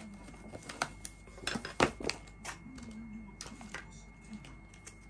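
Dishes and kitchen utensils clinking and knocking in scattered, uneven clicks, the loudest knock a little under two seconds in.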